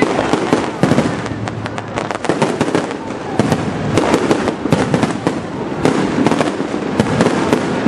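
Fireworks display: a dense, unbroken barrage of bangs and crackling, many reports a second.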